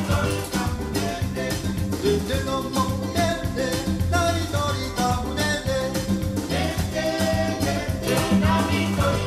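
A song with a singing voice over a steady bass line, played back through a pair of MB Quart 800 hi-fi loudspeakers in a listening test.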